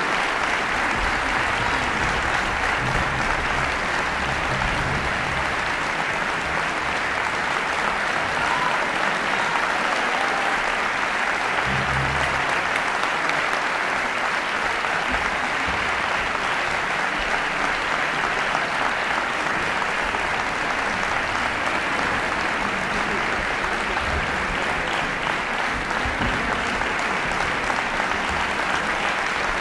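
Concert-hall audience applauding, a dense, even clapping that holds steady throughout.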